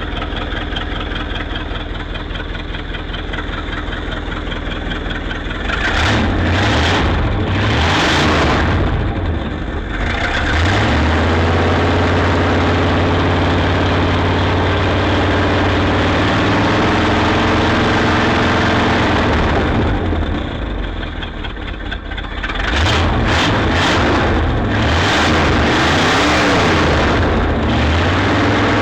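1959 Ford Thunderbird V8 running after its no-start fault has been found. It idles steadily, is revved up and down about six seconds in, and is held at a higher speed for around ten seconds. It drops back and is revved again several times near the end.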